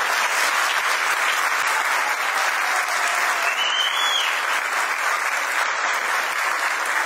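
Audience applauding steadily, with one short high tone that rises and falls about halfway through.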